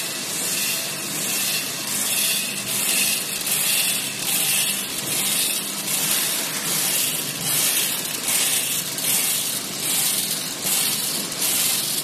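Multihead weigher on a vertical bean packing machine running: a steady rattling rush of beans through the feeder pans and weigh hoppers. A hissing surge swells about every three-quarters of a second over a low steady hum.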